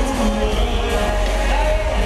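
Live amplified pop music with heavy bass and a male singer's voice.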